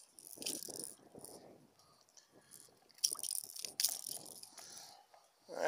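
Irregular rattling and clicking as a hooked bass shakes while held up by the lip, knocking the hard plastic lure in its mouth about, with hand-handling noise.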